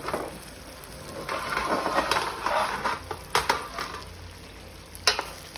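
Shrimp cooking in a skillet of garlic butter sauce while a wooden spoon stirs slowly through them, a scraping, rustling swell in the middle, and two sharp knocks against the pan, one past the halfway point and a louder one near the end.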